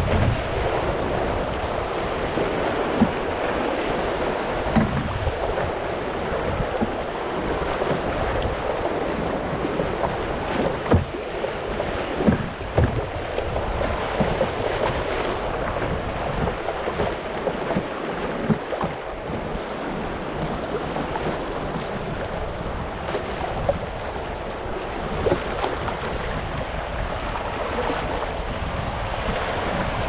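River rapids rushing and churning around a canoe running whitewater, a steady noise of fast water with a few short, sharp knocks scattered through it.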